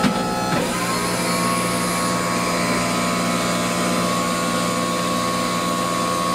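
Electric motor of a streetcar's built-in wheelchair lift running with a steady whine as the lift moves. It stops briefly near the start and comes back about half a second in, rising quickly in pitch before settling.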